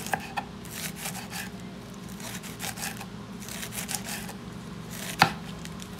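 Kitchen knife slicing lettuce on a wooden cutting board: a quick run of crisp cuts, each ending on the board, with one sharper knock about five seconds in.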